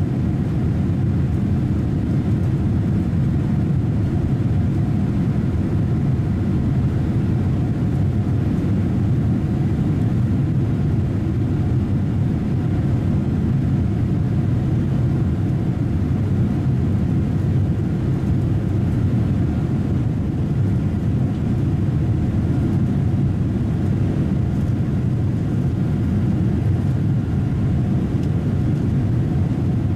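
Steady low rumble of engine and airflow noise inside a jet airliner's cabin, in flight shortly after takeoff, with a faint steady hum above it.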